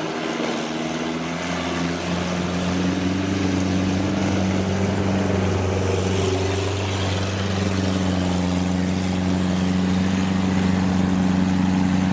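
Kubota DC70 rice combine harvester running as it cuts through the field: a steady diesel engine drone over the noise of the machine working. The drone builds a little over the first two seconds and then holds an even pitch.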